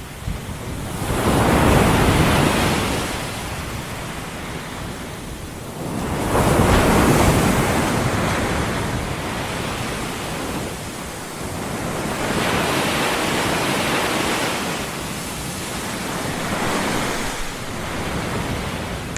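Ocean surf noise: waves rushing in and falling back, swelling about every four to six seconds.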